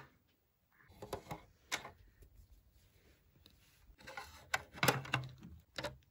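Faint clicks and knocks of plastic Schleich toy horse figures being moved about in a plastic toy horse trailer: a few light taps about a second in, and a cluster of small knocks near the end.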